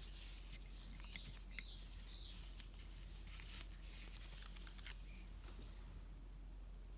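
Faint handling sounds: a few light clicks and soft rustles as a small plastic alcohol-ink dropper bottle is opened and handled with a rubber-gloved hand, over a low steady hum.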